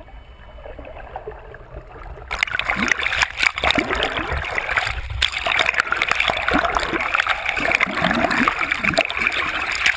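Water splashing and gurgling around a camera at the water's surface, starting about two seconds in and going on steadily as a dense, crackling rush.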